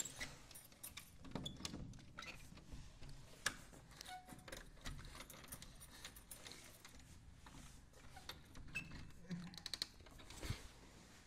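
Keys jangling and clicking as a key is fumbled into a door lock: a string of faint clicks and jingles, with louder ones about three and a half seconds in and near the end.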